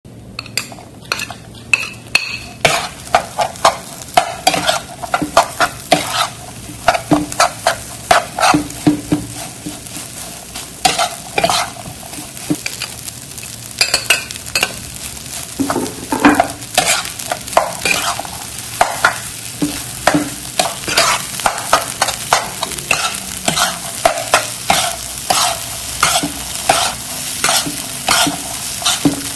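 Metal spatula scraping and knocking against a nonstick wok in repeated strokes, stir-frying rice with diced vegetables, sausage and egg, over a steady sizzle of oil in the hot pan.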